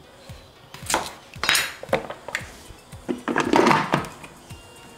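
Plastic knocks and clatter as the Thermomix Cutter's lid and feed tube are handled and pressed down onto the mixing bowl. There are a few separate knocks, with the loudest, longest clatter about three and a half seconds in. Quiet background music runs underneath.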